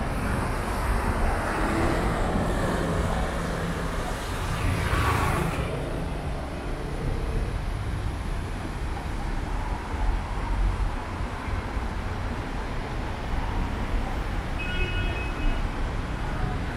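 City street ambience: a steady wash of traffic noise. A swell of hiss passes about five seconds in, and there is brief high beeping near the end.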